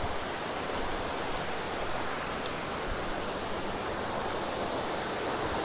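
Creek water rushing, a steady, unbroken hiss of flowing water.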